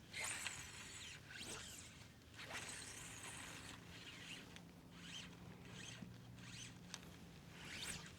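Fly line being stripped in through the rod guides and swished during casting: a faint series of short rasping pulls, several seconds' worth.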